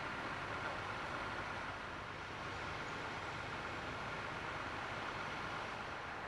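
Steady outdoor background noise, an even hiss and rumble with no distinct events.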